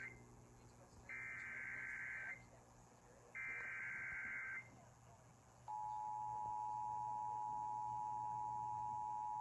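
Emergency Alert System SAME header: the tail of one harsh, warbling digital data burst, then two more, each about a second long with a short gap between. About six seconds in, the steady two-tone EAS attention signal starts. Together they mark the start of a severe thunderstorm warning relayed over a TV station.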